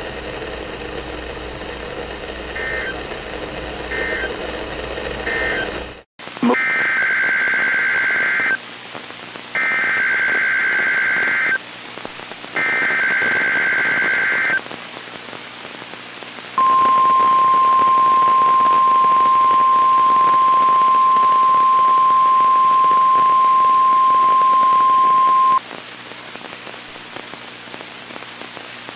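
NOAA Weather Radio test alert over a weather radio receiver. Three loud two-second bursts of screechy SAME digital header data, about a second apart, are followed by the steady 1050 Hz warning alarm tone held for about nine seconds. Radio hiss runs underneath, and a few faint short beeps come before the bursts.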